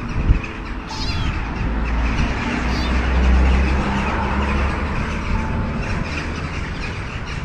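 A small kitten mewing a few times over the low rumble of a passing vehicle, which swells to its loudest partway through and then fades.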